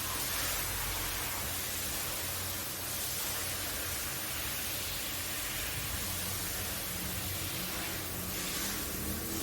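Dirty carpet being washed: a steady rushing hiss from the brush and water working the pile, with a low hum underneath.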